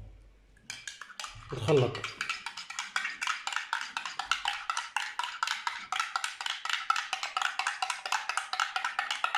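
A spoon stirring a glass of hot milk, clinking rapidly and evenly against the glass.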